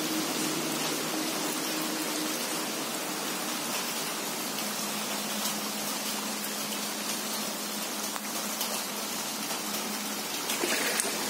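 Steady hiss of heavy rain falling on standing floodwater, growing louder near the end.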